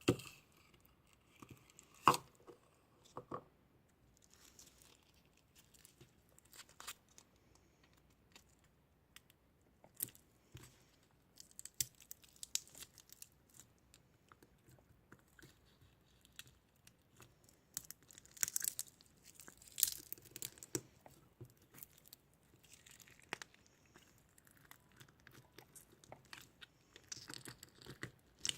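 Close-up ASMR object handling: irregular crinkling and tearing noises with scattered sharp taps and clicks. The loudest come about two seconds in and in a busier stretch about two-thirds of the way through.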